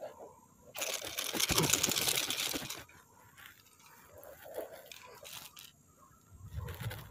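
A loud crunching, scraping noise lasts about two seconds, starting about a second in. Softer scattered rustles and taps follow.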